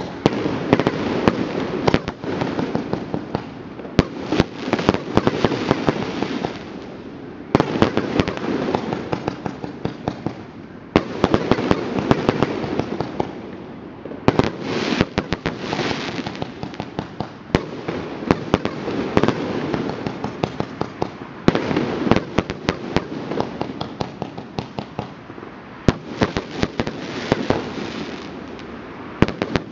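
Many fireworks going off at once: a dense, continuous crackle broken every few seconds by quick volleys of sharp bangs.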